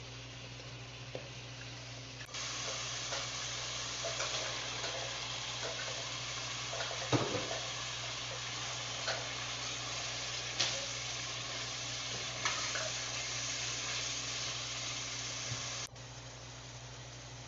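Spiced onion-tomato masala with chickpeas sizzling as it fries in a non-stick pot, stirred and scraped with a plastic slotted spatula. The sizzling starts abruptly about two seconds in and cuts off suddenly near the end, with scattered scrapes of the spatula over it.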